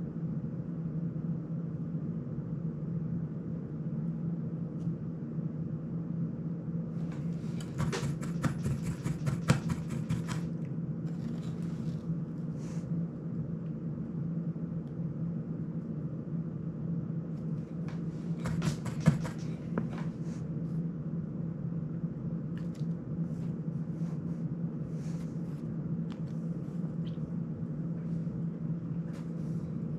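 Small clicks and scraping from tools, wires and small parts being handled during soldering work on a drone, in two clusters about 8 seconds in and about 19 seconds in, with scattered light ticks later. A steady low hum runs underneath.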